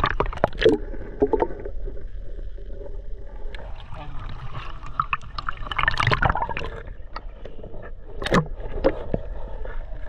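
Water sloshing and gurgling around a camera dipped in and out at the surface of a shallow sea pool, with a muffled underwater rumble; splashier surges come near the start, about six seconds in and just after eight seconds.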